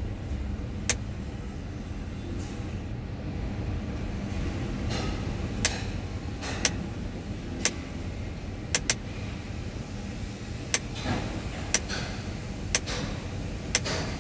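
Steady low rumble heard from inside the cab of a Potain MD569 tower crane, broken by about nine sharp clicks at irregular intervals.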